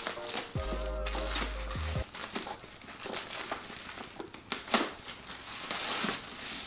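Plastic poly mailer bag being torn open and crinkled as a cardboard box is pulled out of it. A short bit of music with a deep bass note plays during the first two seconds.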